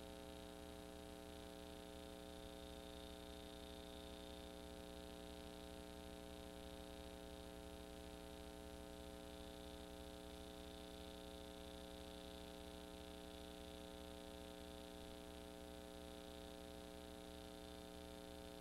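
Faint, steady electrical hum and buzz with no other sound, unchanging throughout: the noise floor of a silent home-movie transfer.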